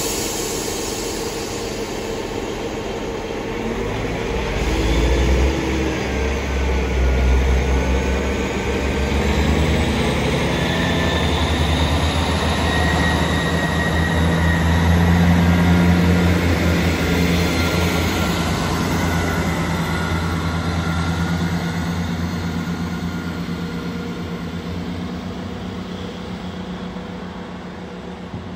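Class 158 diesel multiple unit pulling away: its underfloor diesel engines throttle up about five seconds in with a deep drone and a whine above it, stay loud through the middle, then fade steadily as the train draws away.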